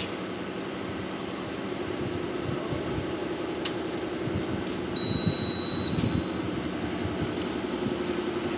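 A steady low machine hum in the bus cab, with a short click about three and a half seconds in and a single high-pitched electronic beep lasting about a second near the middle.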